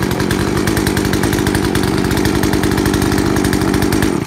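Poulan PL3314 33cc two-stroke chainsaw engine running steadily, then cut off suddenly at the very end when the stop switch is clicked down.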